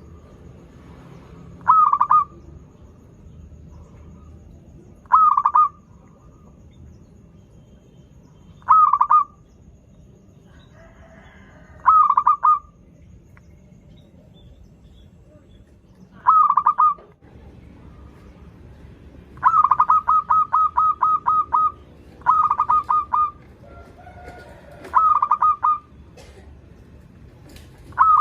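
Zebra dove (perkutut) cooing: short, loud trilled phrases of rapid notes, repeated about every three to four seconds. About two-thirds of the way in there is one longer run of quick notes.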